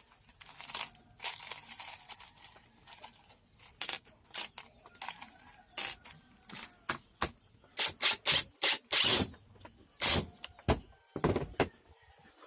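Irregular clicks, knocks and scrapes of hand work on parts, with a run of longer rasping scrapes about two-thirds of the way through.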